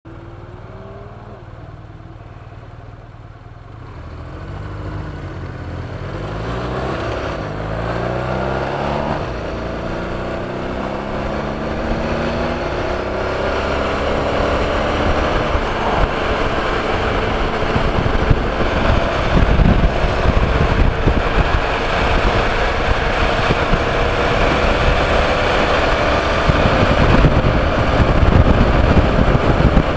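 Motorcycle engine heard through a helmet-mounted mic: running steadily at first, then about four seconds in pulling away and accelerating up through several gears, the pitch rising and dropping back at each shift. From about halfway on, rushing wind at cruising speed grows over the engine, with gusts buffeting the mic.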